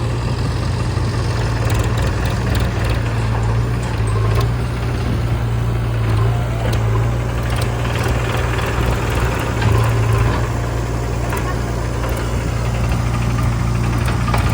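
Heavy diesel machinery running steadily at a low, even engine speed, with a deep constant hum and a few light clicks over it.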